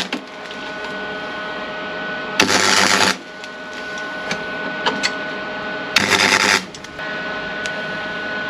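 Wire-feed (MIG) welder laying two short welds on steel, each arc burst lasting under a second: one about two and a half seconds in, the other about six seconds in. A few sharp ticks fall between them over a steady hum.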